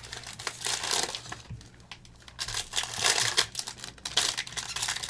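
Plastic card pack wrappers crinkling as they are handled and opened, in irregular bursts with a quieter pause midway.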